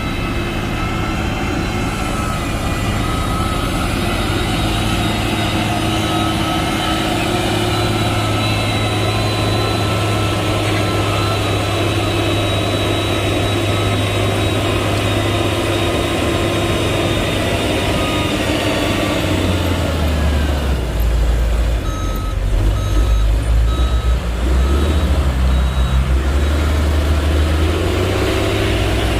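Heavy diesel engine of a motor grader running steadily under load. About two-thirds of the way in a deeper, louder engine note joins, and a reversing alarm beeps several times.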